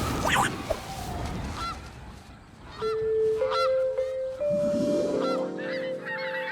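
Short honk-like calls, one about every second, over a background score whose held notes start about three seconds in and step up in pitch.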